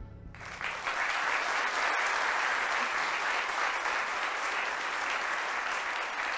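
Studio audience applauding. It starts just after the beginning, swells to full strength within about a second, then carries on steadily.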